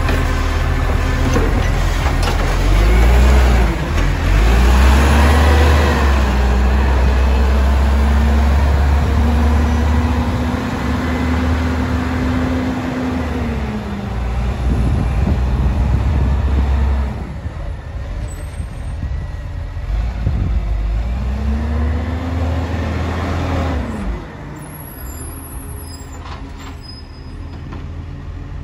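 Side-loader garbage truck's diesel engine revving up and down as its hydraulic arm tips and lowers a wheelie bin, then the truck driving along the street, its engine rising and falling in pitch and growing quieter near the end.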